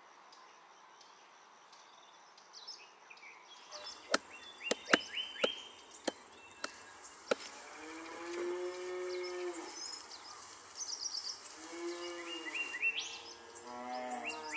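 Near silence, then a run of sharp clicks and knocks, followed by cattle mooing: long low moos about halfway through and again near the end, with high chirps over them.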